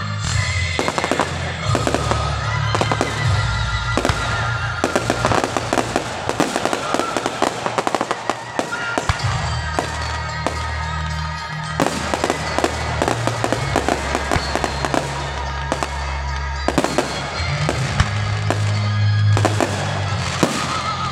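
Aerial fireworks going off: dense runs of bangs and crackling shell bursts, with a few brief lulls between volleys.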